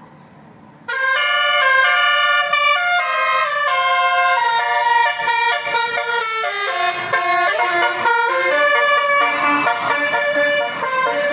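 Basuri telolet horn, a multi-note electric vehicle horn, playing a tune: a fast string of loud, steady notes stepping up and down in pitch. It starts suddenly about a second in.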